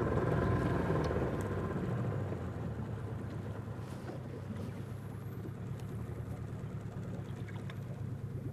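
A hooked salmon churning the water at the surface beside the boat: a rushing splash, loudest in the first two seconds and then easing, over a steady low hum.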